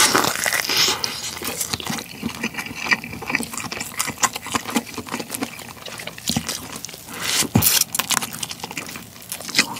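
Close-miked eating of a cooked black tiger shrimp head: wet sucking and mouth sounds as he eats from the head, with the shell crackling and clicking as it is pulled apart.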